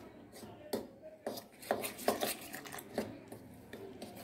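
Metal spoon scraping and clicking against a steel bowl in short, irregular strokes, about two or three a second, as gram flour is mixed with water into a batter.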